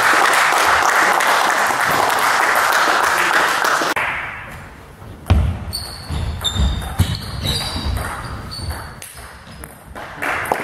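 Spectators applauding for about four seconds, which stops abruptly. Then a table tennis rally: the ball clicking off bats and table, with short high squeaks and low thuds from the players' shoes on the sports hall floor.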